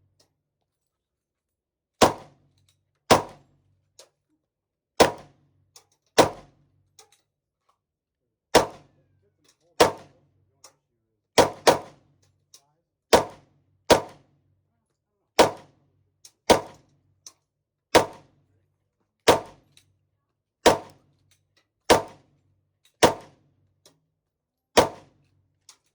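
Glock 19 Gen 5 9mm pistol being fired at a slow, uneven pace, about eighteen single shots, one every second or so, each with a short ringing tail.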